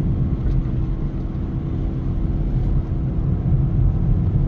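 Car cruising at highway speed, heard from inside the cabin: a steady low rumble of road and engine noise with a faint constant hum.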